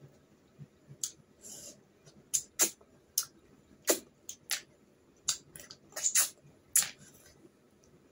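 Snails being sucked out of their shells at the mouth: a dozen or so sharp sucking pops and lip smacks at irregular intervals, with a couple of short hissing slurps.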